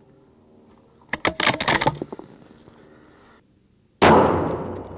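A fast run of sharp clicks about a second in, from the scope's elevation turret being dialed up for the shot. Then, about four seconds in, the custom 6.5 Creedmoor precision rifle fires one loud shot, and the report trails off over about a second.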